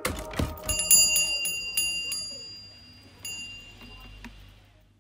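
Brass shop door bell on a sprung bracket ringing, its clapper striking rapidly for about two seconds and then twice more as the ringing fades away.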